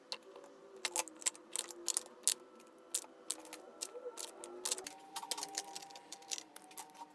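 Plastic makeup cases and palettes clicking and tapping as they are picked up off and set down on a glass shelf, a quick, irregular run of sharp clicks.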